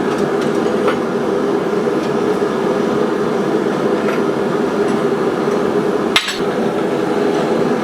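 Steady roar of a running blacksmith's forge, with a single sharp metallic knock about six seconds in.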